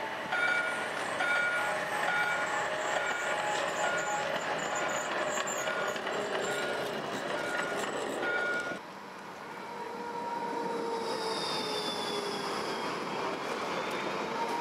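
A tram running past on its rails with a steady rumble, while a short beep repeats about twice a second. After a sudden cut near the middle, the sound switches to on board a tram: its traction motors whine, the pitch sliding down and then back up.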